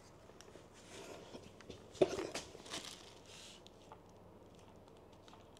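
Brief rustling and crinkling of painting gear being handled, with a single sharp click about two seconds in.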